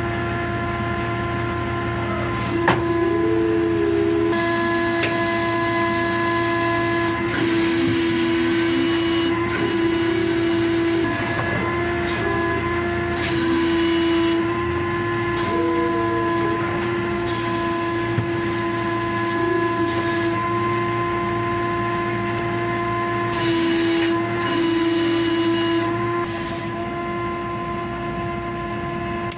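Machinery running with a steady, high-pitched hum. A sharp knock comes about three seconds in, and several bursts of hiss come and go over it.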